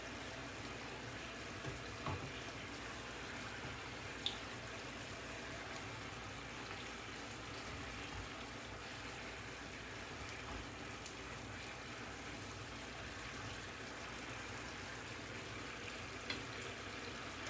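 Food sizzling steadily in a frying pan on the stove, with a few faint light clicks.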